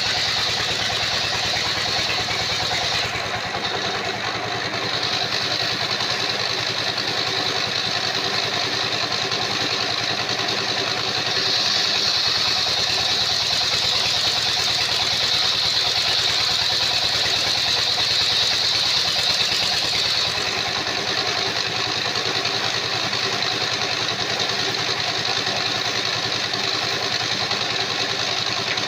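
Sawmill engine running steadily, with a high whine that grows stronger for about eight seconds in the middle.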